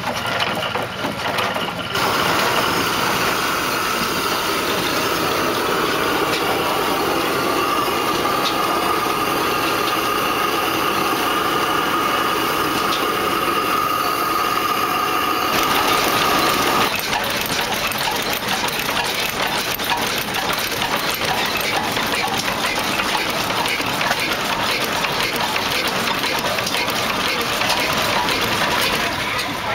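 Vintage Hornsby-Ackroyd hot-bulb oil engines running, heard one after another. The sound changes abruptly a few times as one engine gives way to the next. A steady high tone runs through the first half and stops suddenly, and dense rapid ticking fills the second half.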